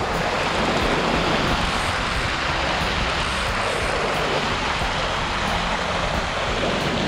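Steady rushing of a stream's flowing water, an even noise that holds without a break.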